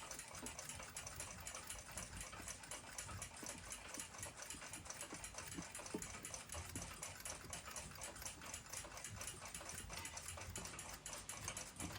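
Faint, fast, even ticking of a mechanical clock movement.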